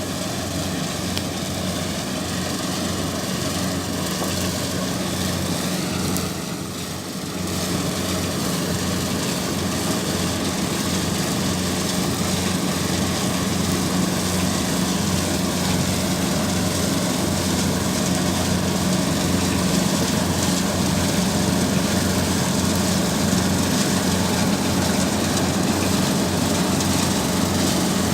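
An engine running steadily with a low, even hum, easing off briefly about six seconds in before carrying on.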